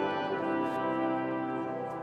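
Brass ensemble of trumpets, trombones and horns playing held chords, with a change of chord just after the start, ringing in a large, resonant cathedral.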